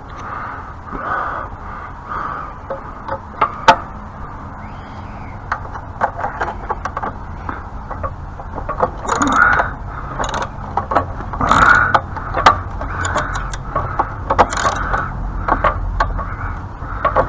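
Socket ratchet working on a binding bolt on a pressure washer: irregular metal clicks and several louder scraping rasps as the tool slips without enough down pressure.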